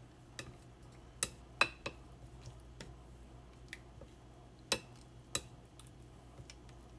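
Wooden chopsticks stirring oysters in egg and flour batter in a ceramic bowl, clicking and tapping against the bowl at irregular intervals, a few taps louder than the rest.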